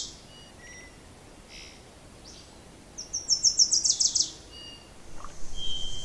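A songbird singing a quick run of about ten high notes, each dropping in pitch, lasting just over a second about three seconds in. The tail of the same song ends right at the start, with a few faint chirps in between. Soft chime-like music begins near the end.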